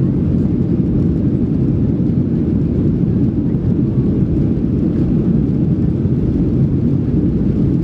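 Boeing 737 cabin noise from a seat over the wing as the jet rolls along the runway: a steady, loud low rumble of the engines and wheels.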